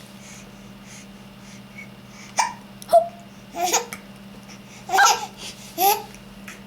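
A young child hiccuping while trying to laugh: about five short, voiced hiccup-laughs with pauses between them, the first about two seconds in.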